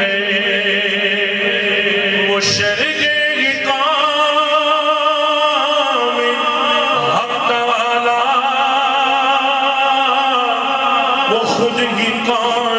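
A male voice sings an Urdu naat into a microphone, holding long ornamented notes with a wide vibrato, over a steady low drone. There is a short break between phrases about two and a half seconds in and again near the end.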